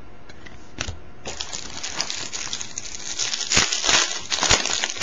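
Foil trading-card pack wrapper crinkling and tearing as it is pulled open by hand, loudest near the end, after a single click about a second in.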